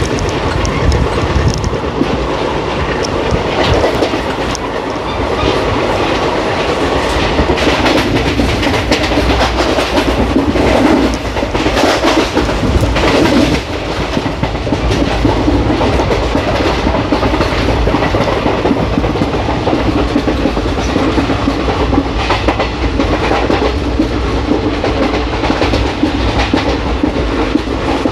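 Wheels of an Indian Railways ICF passenger coach running over the rails, heard from on board: a steady rumble with a continuous run of track clicks and clatter.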